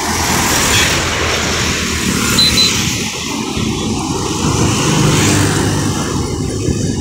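Road traffic passing close by: heavy diesel trucks and cars with engine drone and tyre noise, swelling as a Tata truck goes past in the second half. Two short high beeps sound about two and a half seconds in.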